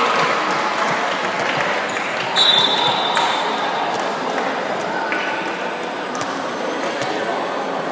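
Crowd noise in an indoor sports hall during a school handball match, dying down from cheering at the start, with a handball bouncing on the court and sneakers squeaking. A brief high tone sounds about two and a half seconds in.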